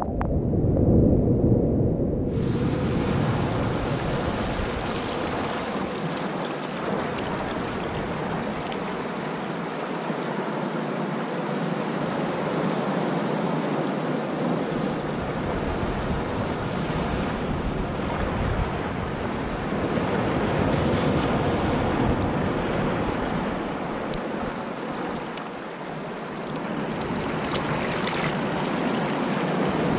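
Shallow surf washing in over sand and around rocks at the water's edge, heard close up. It sounds muffled for the first two seconds, then swells in waves: about a second in, again around twenty seconds, and near the end.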